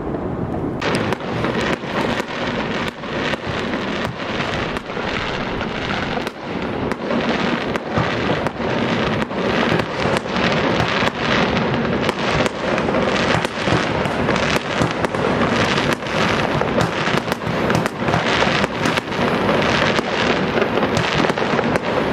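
Low wind rumble on the microphone for about the first second. Then a continuous fireworks barrage from a ground-launched multi-shot display: dense bangs and crackle, several a second, without a break.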